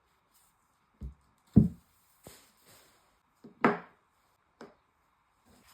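A series of separate knocks and thuds, about six, from objects handled and set down on a hard surface, with two louder ones a second and a half and nearly four seconds in.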